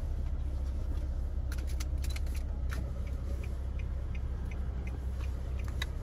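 Steady low rumble of a car heard from inside its cabin, with a scatter of light clicks and ticks from about a second and a half in.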